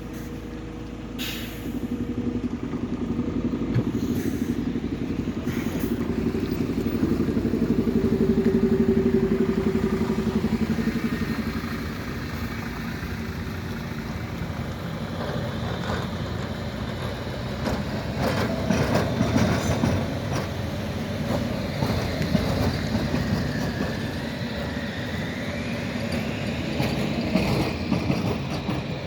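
ZET tram 778 running in over depot track: a low running hum that swells and fades in the first half, then scattered sharp clicks of wheels over rail joints and points, with a wavering high squeal near the end.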